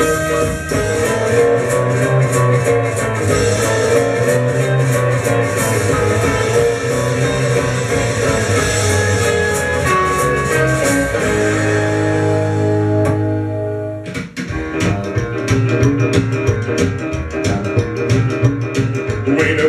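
Rock'n'roll record with guitar, bass and drums. About fourteen seconds in it fades and a different track starts with a sharper drum beat.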